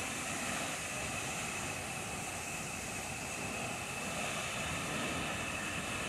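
Steady rush of the Misol-Ha waterfall, a tall single plume that is carrying little water in the dry season, falling into its pool. A steady high tone sits over it.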